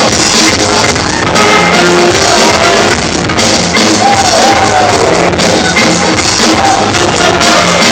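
Loud, poorly recorded music playing for a dance battle, with a crowd shouting over it.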